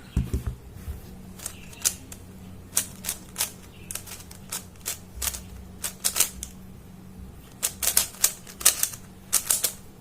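Faces of a YJ Yuhu V2M magnetic megaminx being turned fast during a solve: a run of sharp plastic clicks at uneven spacing, coming in quicker clusters near the end.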